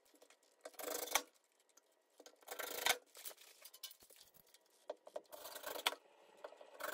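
Faint, brief scratching and rustling from hand work at the wall, in about three short bursts with near quiet between.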